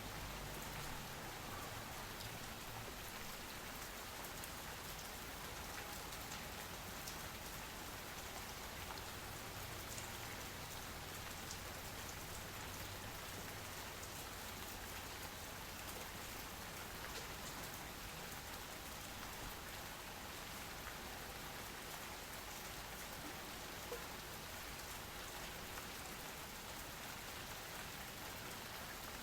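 Steady rain falling and pattering on surfaces, with occasional single drops standing out.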